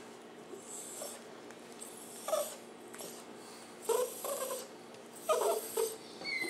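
Chihuahua making a weird noise while being petted, in three short bursts about a second and a half apart.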